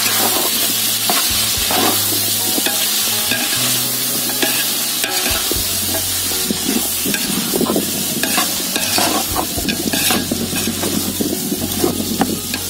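Chopped vegetables frying in oil in a large metal pot, with a steady hiss, while a perforated metal ladle stirs them and scrapes repeatedly against the pot.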